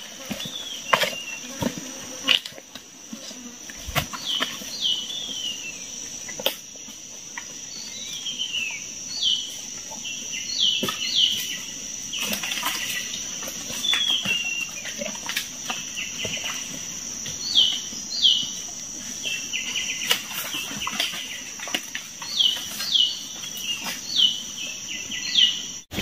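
Forest ambience: a steady high-pitched insect drone, typical of cicadas, with a bird repeatedly calling short falling whistles, many in pairs. In the first few seconds there are crackling footsteps on dry leaves and bamboo litter.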